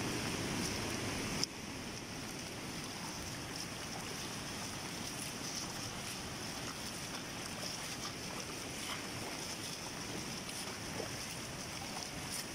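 Steady rushing noise of heavy rain and flowing floodwater, dropping abruptly in level about a second and a half in, then holding steady.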